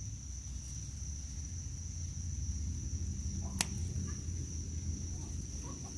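Insects chirring in a steady, even high tone over a low rumble, with a single sharp click about three and a half seconds in.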